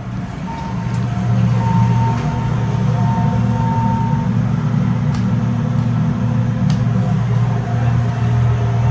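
Elevator cab ventilation fan running with a steady low hum that swells about a second in.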